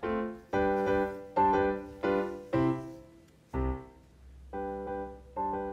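Light background piano music, notes and chords struck about twice a second, each fading away.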